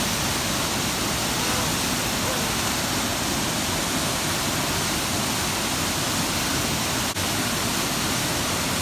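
Waterfall: a steady, even rush of falling water, broken only by a momentary dropout about seven seconds in.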